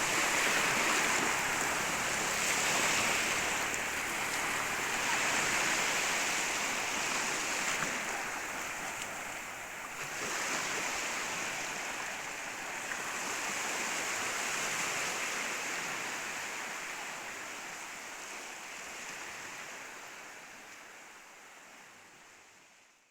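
Sea waves breaking and washing up a beach: a continuous hiss of surf that swells and eases every few seconds, then fades out over the last several seconds.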